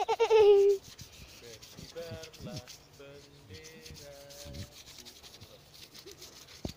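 Scratchy handling noise from a finger rubbing against a phone's microphone, with scattered clicks. A loud short cry, falling in pitch, opens it, and fainter pitched calls come and go in the middle.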